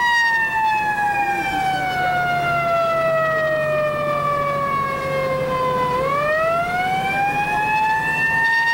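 Fire rescue truck's siren wailing: the pitch falls slowly for about six seconds, then rises quickly back up.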